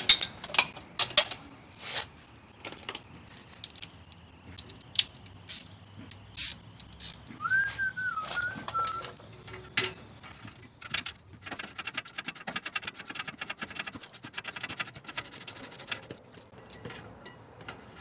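Metal tools clinking, then a socket ratchet clicking rapidly for several seconds as the loosened 18 mm caliper-bracket bolts are backed out. A short whistled bird call rises and falls a little before the middle.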